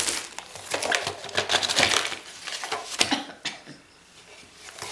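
Crinkling plastic wrap and handling of a rolled diamond painting canvas and its packaging, with sharp knocks at the start and about three seconds in; quieter rustling after that.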